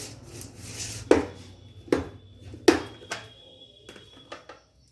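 Several sharp taps and knocks of kitchen utensils and containers being handled while ingredients are added to a bowl. The loudest comes just before the middle, with smaller ticks near the end.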